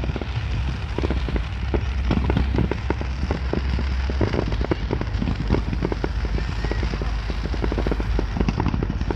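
Fireworks going off in a dense, irregular run of bangs and crackles over a steady low rumble.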